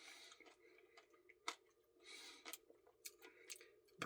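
Near silence with faint eating sounds: a few soft mouth clicks and smacks of someone eating ice cream.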